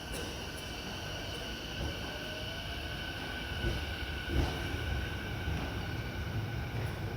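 Electric train noise at a station: a steady low rumble with a faint high hum, and a dull thump about four and a half seconds in.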